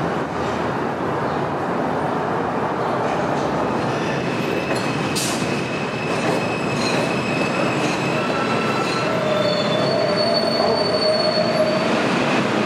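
New York City subway train moving through the station: a steady rumble of steel wheels on rail, with thin high wheel squeals that come and go. Several squeal tones, high and lower, come in together over the last few seconds as the sound grows a little louder.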